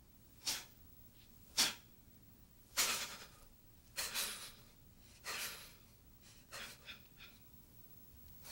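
Sharp, forceful breaths taken in time with Tensegrity movements: a series of short, noisy breaths about one a second, the last few fainter and shorter.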